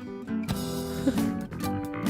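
Background music with plucked-string notes.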